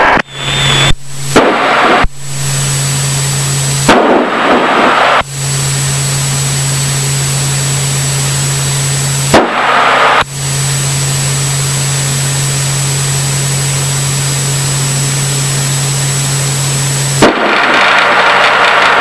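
Aircraft radio static in the headset audio: a loud, even hiss with a low steady hum. It cuts out and back in several times, with a click each time it opens.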